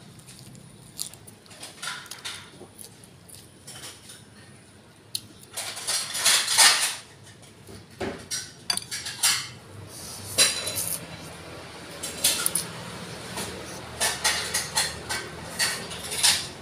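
Eating sounds: chopsticks and a spoon clicking against a ceramic noodle bowl, with chewing. There is a louder stretch of noise about six seconds in.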